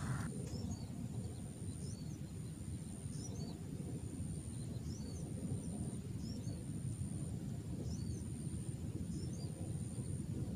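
A small bird repeating a short, high chirp about once every second or so, over a steady low rumble and a faint, steady high whine.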